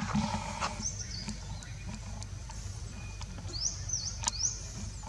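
High-pitched animal chirps in short rising-and-falling glides: one group about a second in, and a quick run of several near the end. Sharp little clicks are scattered among them.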